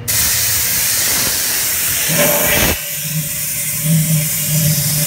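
High-pressure compressed air blasting from a long air wand, a loud hiss that starts abruptly, blowing out the inside of a bladder accumulator shell to clean it. After about three seconds, with the nozzle inside the shell's port, a steady low tone sounds under the hiss.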